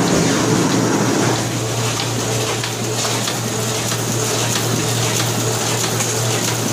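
Ryobi 500N NP small offset printing press running steadily, a continuous mechanical clatter and hiss over a low hum, slightly louder in the first second and a half.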